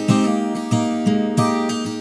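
Background music: acoustic guitar strummed in a steady rhythm, a chord about every half second.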